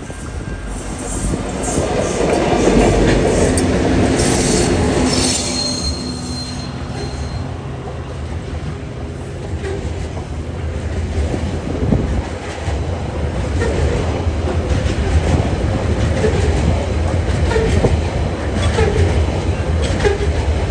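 A TasRail coal train passing close by: the diesel locomotives go by first, loudest about three seconds in, then a long line of coal hopper wagons rolls past with repeated clicking of wheels over the rail joints and some wheel squeal.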